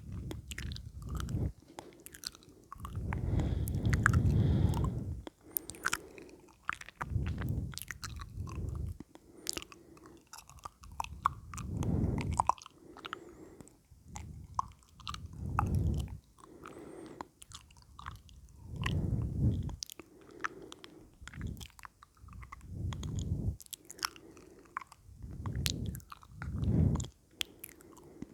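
Close-miked ASMR mouth sounds: many small wet clicks and smacks of the lips and tongue, with low muffled swells every two to four seconds.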